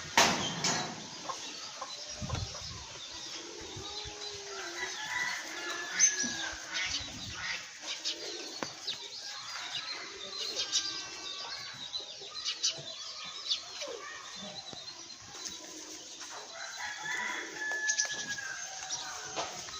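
Domestic chickens clucking and calling in short, scattered calls throughout, with a sharp knock right at the start.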